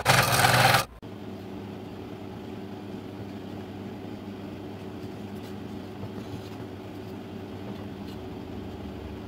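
Scroll saw blade cutting wood for about the first second, cutting off suddenly. Then a steady low machine hum with a few faint light taps.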